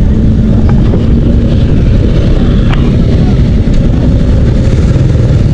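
Motorcycle being ridden, heard from the rider's camera: steady wind rumble on the microphone over the engine running at a steady pace.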